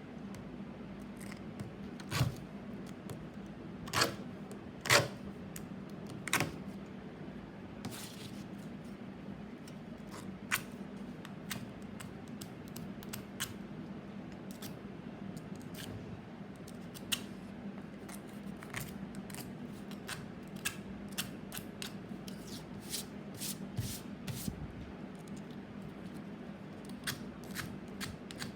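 Sharp clicks and snips of small hand tools being worked: a few louder snaps in the first several seconds, then many lighter ticks, over a steady low hum.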